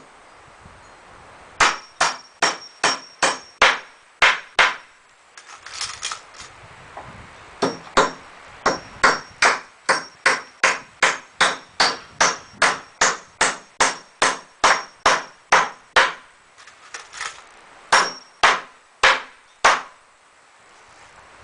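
Hammer blows on pallet-wood boards, fitting a piece into place. The strikes come in runs of about two to three a second, many with a short metallic ring, with two short pauses between runs. The blows stop shortly before the end.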